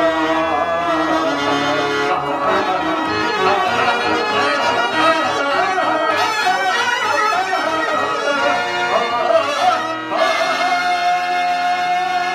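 Harmonium music accompanying Telugu stage-drama verse, with a voice singing along at times. The music dips briefly about ten seconds in, then settles into one long held note.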